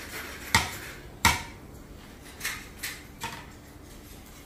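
Metal ladle knocking against a large metal kadhai: two sharp clanks close together in the first second and a half, then three lighter knocks.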